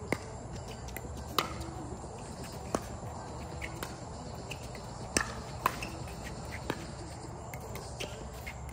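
Pickleball paddles hitting a plastic ball in a rally: a string of sharp pops, irregularly spaced about a second or so apart, over a steady low background hum.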